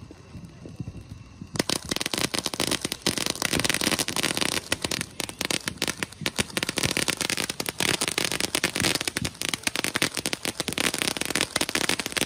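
Brothers Pyrotechnics Highballin' fountain firework burning, a low hiss that breaks about one and a half seconds in into a dense, continuous crackle of crackling stars.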